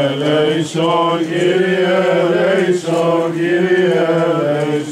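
Greek Orthodox Byzantine chant sung by men's voices in long held notes, with a steady low note sustained beneath the moving melody.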